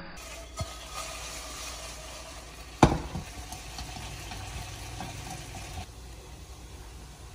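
Food sizzling as it fries in a pan, with a sharp knock about three seconds in and a few lighter clicks from utensils.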